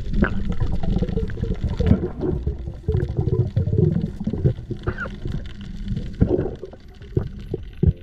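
Muffled underwater noise picked up by a diving camera: an irregular low rumble of moving water, with scattered short wavering tones and faint clicks.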